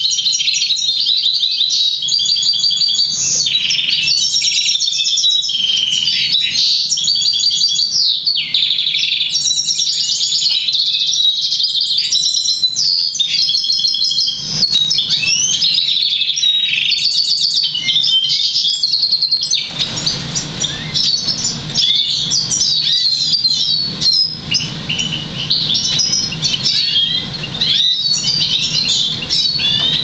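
Black siskin × crested Russian canary mule singing a long, continuous song of rapid trills and twittering phrases, including European goldfinch notes it was trained to sing.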